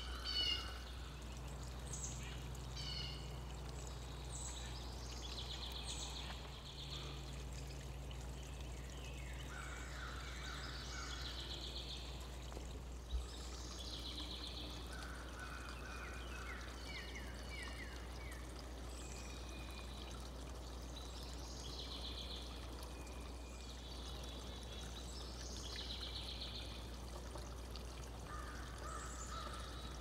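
Backyard songbirds chirping and twittering, with short calls and buzzy trilled phrases every second or two, over a steady background hiss and low hum. A single sharp click about 13 seconds in.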